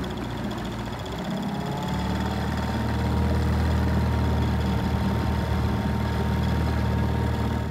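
Small tiller-steered outboard motor running steadily as the boat moves along, growing louder about two seconds in.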